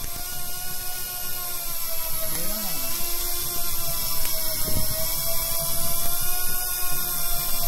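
Shimano electric deep-drop fishing reel's motor winding in line with a steady whine that wavers slightly in pitch and gets gradually louder.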